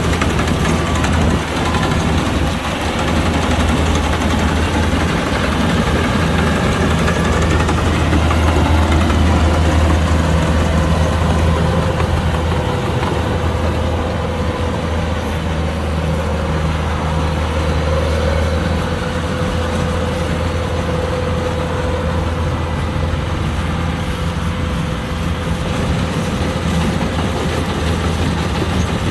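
Kubota combine harvester's diesel engine running steadily while harvesting rice: a deep, even hum with a steady whine from the machinery over it.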